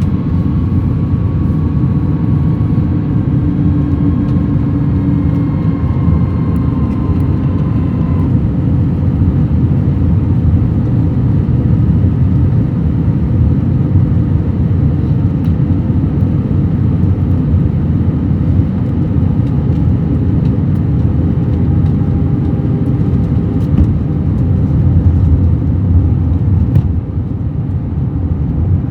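Steady rumble inside the cabin of an Airbus A321-200, the noise of its engines and the air rushing past. Faint thin tones sit over the rumble for the first several seconds and then fade out.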